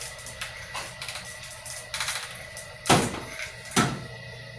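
Wire stripping machine cutting the insulation off copper wire, giving a run of clicks and knocks; the two sharpest come about three and four seconds in. A faint steady hum runs underneath.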